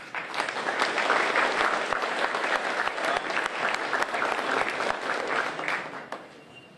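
Audience applauding, many hands clapping for several seconds before dying away about six seconds in.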